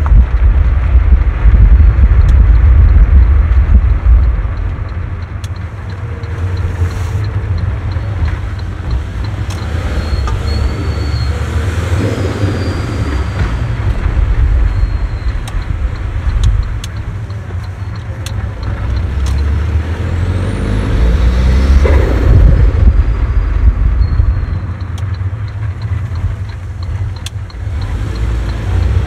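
Saab 9-5 driven slowly over a bad, uneven road, heard from inside the cabin: a deep, steady rumble of tyres and suspension over the engine, loudest in the first few seconds, with scattered knocks and rattles from the car body.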